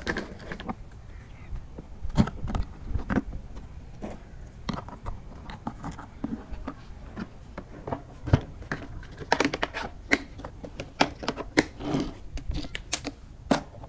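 Plastic clicks, knocks and scrapes as a Bossman 18-litre wet-and-dry vacuum is handled: the filter cartridge taken out of the tank and the motor lid set back on. A quick run of sharp clicks comes in the last few seconds as the lid is pressed into place.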